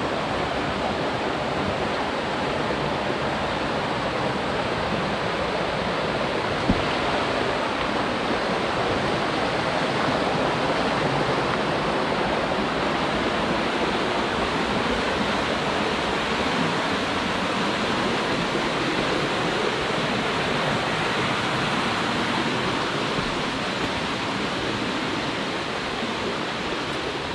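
Steady rush of flowing water, even and unbroken, with one sharp click about seven seconds in.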